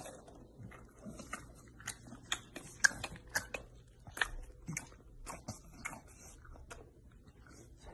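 English bulldog crunching dry cereal: irregular sharp crunches, about two or three a second.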